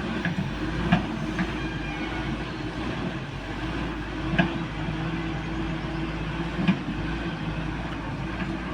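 CAT excavator's diesel engine running steadily while working, with sharp knocks about a second in, at about four and a half seconds, and near seven seconds.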